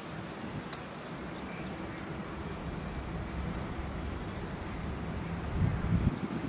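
A few faint, short, high bird chirps over a low outdoor rumble that swells briefly about five and a half seconds in.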